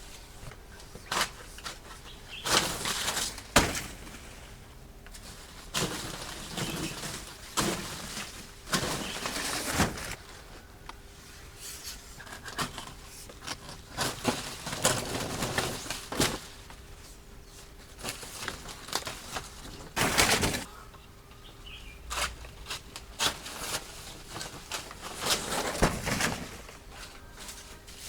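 Irregular rustling and scraping with sharp knocks and clicks, the sounds of hands handling things, over a faint steady hum.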